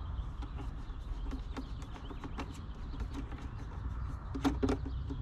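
Hard plastic clicks and knocks as the vacuum tube is worked onto an Echo ES-250 blower-vacuum, with a louder double knock about four and a half seconds in, over a steady low rumble.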